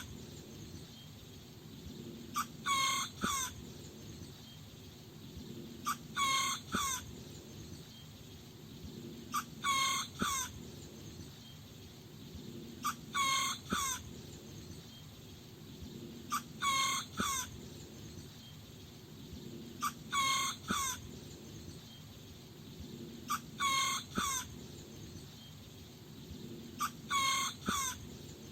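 A small rooster crowing: short, high-pitched crows of a few notes each, about a second long, repeating about every three and a half seconds, eight times.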